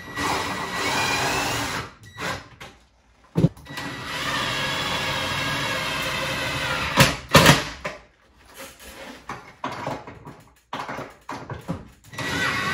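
Cordless drill driving the mounting bolts down through the cabinet into the top of an over-the-range microwave: the motor runs for about two seconds, stops, then runs again for about three seconds, followed by a few sharp knocks.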